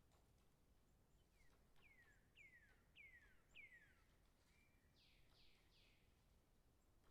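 Faint, distant bird song: five clear whistled notes, each falling steeply in pitch, about two a second, then a short steady note and three broader falling notes, over a low outdoor hiss.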